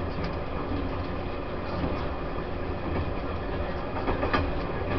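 Taiwan Railways E1000 push-pull Tze-Chiang express train running, heard on board: a steady low rumble of wheels on rail with a few short wheel clicks near the end.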